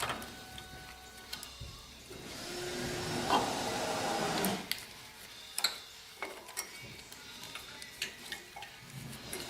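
Light clicks and taps of a small-engine carburetor and its throttle and choke linkage being handled and unhooked, with a louder stretch of even noise about two seconds in.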